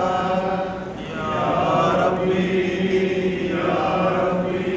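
A man's voice chanting a Shia supplication in Arabic, melodically drawing out the invocation 'yā rabbī' ('O my Lord') in long, gliding held notes.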